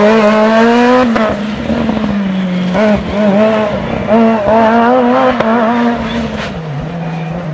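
Peugeot 207 S2000 rally car's two-litre naturally aspirated four-cylinder engine running hard at high revs as it drives past, its pitch climbing and dropping back several times with gear changes and lifts. The sound eases somewhat near the end as the car pulls away.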